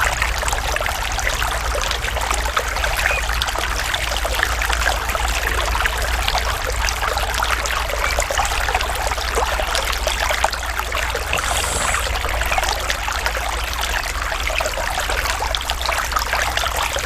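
Natural running water, a stream trickling and splashing steadily, with a steady low rumble underneath.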